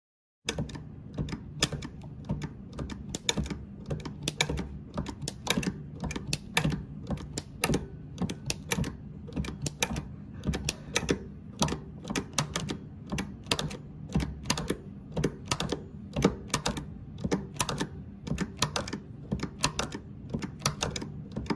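Variable stiffness spring mechanism and its Bowden-cable shift lever clicking, about three to four sharp metallic clicks a second, uneven, over a steady low hum.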